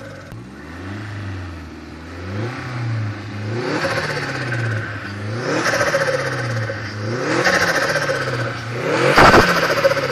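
Fiat Coupé engine revved in a series of quick blips, its pitch rising and falling about every two seconds. The last and loudest blip comes near the end, with a sharp crack.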